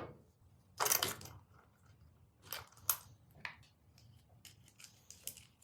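Chainsaw parts and tools being handled during disassembly: a short scrape about a second in, then a few scattered clicks and light knocks.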